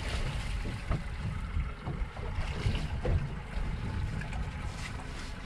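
Wind buffeting the microphone over water splashing and lapping against the side of a small open boat, as a hooked dorado is brought alongside.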